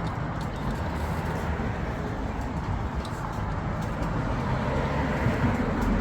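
Steady low rumble of road traffic, with a few faint light clicks scattered through it.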